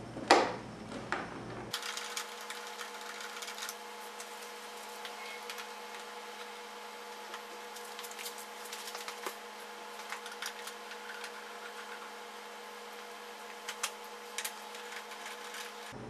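Light clicks and taps of hand tools and small parts on the scooter's plastic handlebar cover, scattered and irregular over a steady hum. One sharp clack just after the start is the loudest sound.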